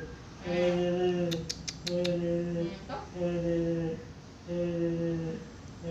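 A person's voice sounding the same long, low note four times over, each held for most of a second, with short breaths between. A quick run of four small clicks comes about a second and a half in.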